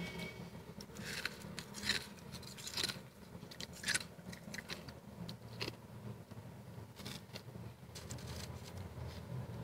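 Soft freezer frost crunching and scraping in short, irregular crackles, the loudest coming in the first four seconds and sparser after, over a low steady hum.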